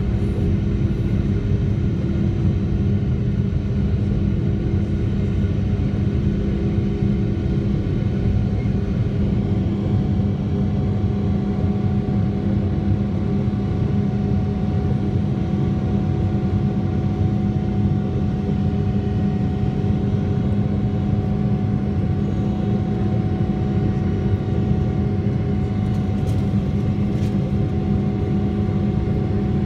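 Cabin noise of a Boeing 777-300ER climbing out after takeoff, its GE90 turbofan engines at climb thrust: a steady, even drone with a few steady hums in it.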